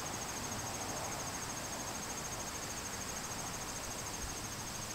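Crickets chirping in a steady, rapid high-pitched trill over a faint background hiss.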